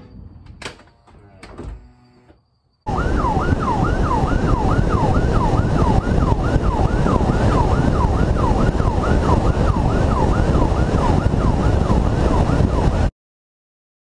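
Police car siren on a yelp setting, sweeping rapidly up and down about two and a half times a second over loud road and engine noise, then cutting off suddenly near the end. Two sharp thumps come first, in the opening two seconds.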